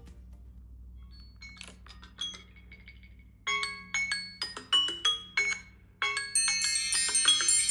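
Smartphone ringtones: a melody of separate struck, marimba-like notes, each ringing out, then about six seconds in a louder, dense, shimmering chime tone starts.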